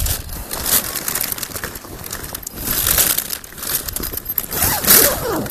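Fabric kayak carry bag being opened and handled, its material and the packed vinyl inflatable kayak inside rustling and crinkling in an irregular crackly run, with a couple of louder swells.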